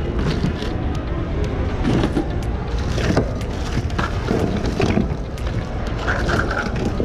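Hands rummaging through bins of secondhand goods: scattered, irregular knocks and clatters of items being moved and dropped, over a steady store background hum.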